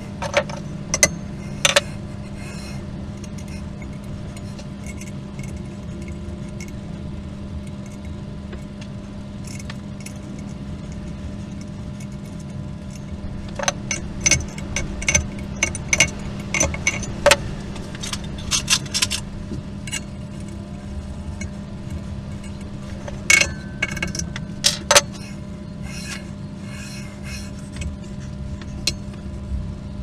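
Sharp metallic clicks and clinks as hands and tools handle the aluminium base plate and rails of a CNC milling machine build. They come in scattered groups, densest about halfway through, over a steady low hum.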